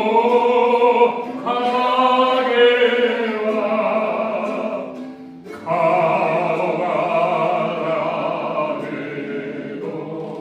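Singing voices holding long, wavering notes over a steady musical accompaniment, breaking off briefly about halfway through and fading toward the end.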